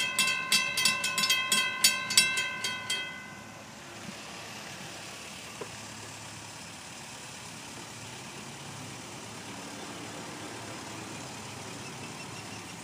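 Railroad grade-crossing warning bell ringing rapidly, about four strikes a second, then stopping about three seconds in. After that only steady, fainter background noise remains.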